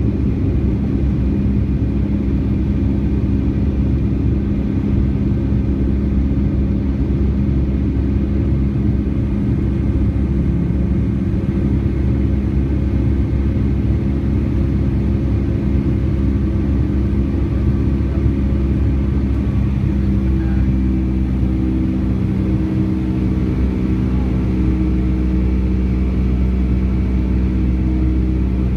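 Boeing 757-200 jet engines running, heard from inside the passenger cabin as a steady rumble with a hum of several steady tones. About twenty seconds in the engine tone changes and higher tones join.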